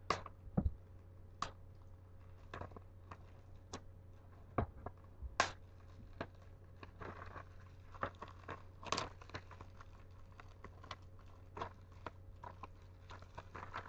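Torn-off wrapping paper being crumpled and handled: scattered crinkles and crackles that come thicker about halfway through.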